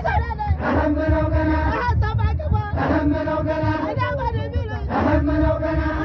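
A group of men chanting a Raya dance song in unison, with a loud new sung phrase about every two seconds.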